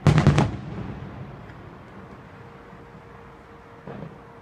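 Aerial fireworks shells bursting. A loud boom right at the start rolls off into a rumble that fades over a couple of seconds, and a fainter boom comes near the end.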